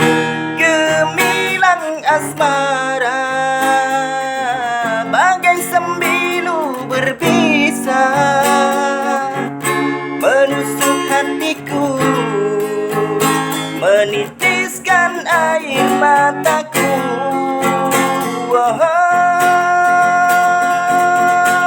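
A man singing a slow rock ballad in his plain, unprocessed voice with no vocal effects, over strummed acoustic guitar, ending on a long held note.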